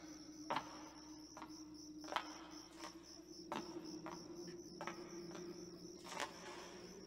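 Faint cricket chirping as a steady, high, pulsing trill over a low steady drone, with a few sharp knocks a second or two apart.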